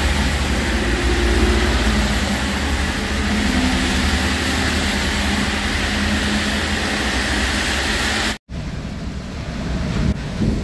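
Traffic on a rain-soaked road in heavy rain: trucks and cars passing with a loud tyre hiss over an engine rumble. After a short break about eight seconds in, this gives way to the quieter, duller rumble of a bus driving in the rain, heard from inside.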